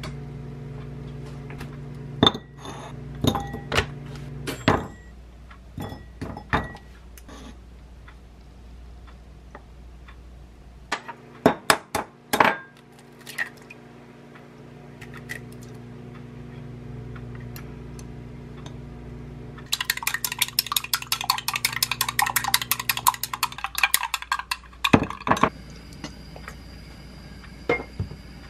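Kitchen clinks and knocks of dishes and a glass mug over a steady low hum. Eggs are cracked into the glass mug, then beaten quickly with a utensil, making a rapid clicking for about four seconds. Near the end a frying pan knocks against the gas hob.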